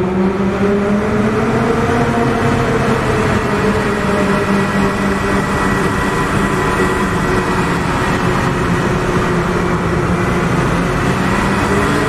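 Synthesized car engine sound effects from Krotos Igniter's Audi and Porsche Carrera presets playing back together: two engines running at a fairly steady pitch, with the engine note starting to rise near the end as one revs up.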